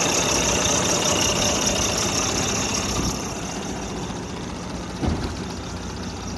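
Volvo D13 inline-six diesel engine idling steadily, with a high whine over the engine note, loud at first and quieter from about three seconds in. A brief low thump about five seconds in.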